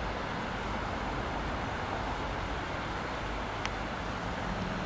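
Steady outdoor background noise: an even hiss and low rumble, with one faint click about three and a half seconds in.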